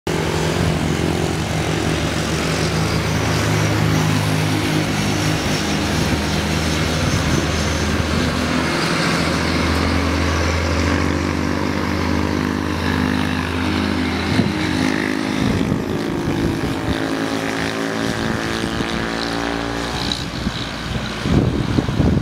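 BB 301 diesel-hydraulic locomotive working under load with a steady low drone as it crawls slowly along. Its engine note shifts and climbs in the last several seconds, and wind buffets the microphone at the very end.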